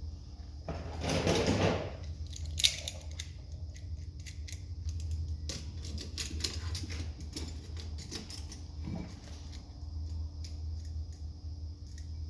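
Irregular light metallic clicks and clinks, as of small metal parts or hand tools being handled, over a steady low hum. There is a short rush of noise about a second in and one sharper snap soon after.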